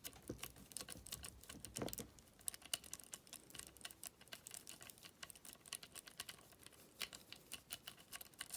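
Faint, quick, irregular metallic clicking and scratching of a cross-lock jiggler being raked and wiggled in a small cross lock.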